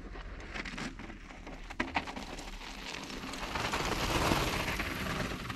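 Mountain bike tyres rolling and crunching over loose dry dirt and gravel, swelling to their loudest as the rider passes close by about four seconds in. A couple of sharp clicks come about two seconds in.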